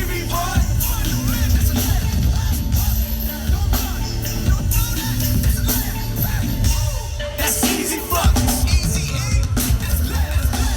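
Live concert music played loud, with a heavy bass beat and singing or vocal lines over it.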